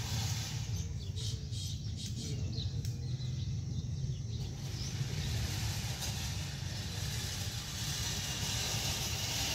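Outdoor ambience: a steady low rumble with a faint hiss above it, and a few faint bird chirps in the first half.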